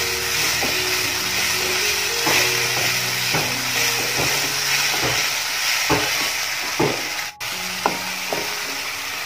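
Chopped onions and tomato sizzling in hot oil in a nonstick kadai, stirred with a wooden spatula that knocks and scrapes against the pan every second or so.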